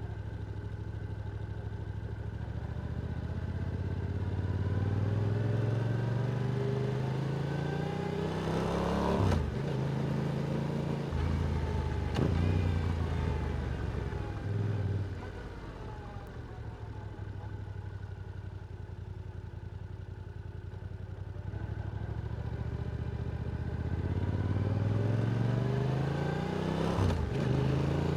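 Yamaha R7's parallel-twin engine through an Akrapovic exhaust, revving up through the gears with quick drops in pitch at each upshift, settling to a lower steady cruise midway, then pulling up again to another shift near the end.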